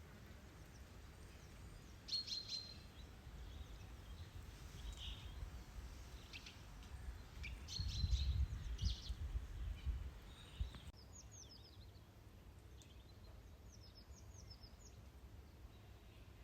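Small songbirds chirping and twittering in short scattered bursts. For most of the first ten seconds wind gusts rumble on the microphone, strongest a little past the middle, and then stop suddenly, leaving only the birds.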